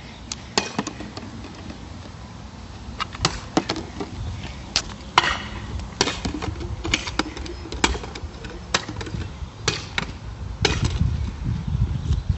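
A baseball bat repeatedly hitting a can of beans on asphalt: many sharp whacks at irregular intervals. A low rumble builds near the end.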